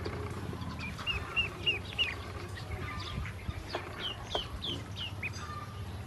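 Ducklings peeping. There is a run of short, high, downward-curving peeps about a second in, then another run near the middle, over a low steady hum.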